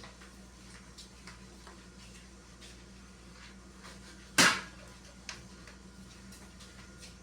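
Light clicks and knocks of containers and fridge parts being handled, with one louder knock about four and a half seconds in and a smaller click just after.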